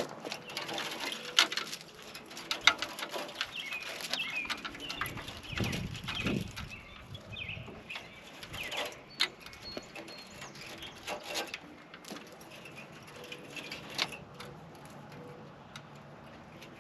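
Scattered clicks and knocks at an irregular pace, the loudest about a second and a half in and near three seconds, with birds chirping in the background.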